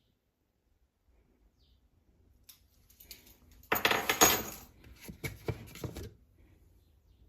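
Clinking and clattering of small hard objects being handled, a dense run of sharp knocks that lasts about two seconds in the middle.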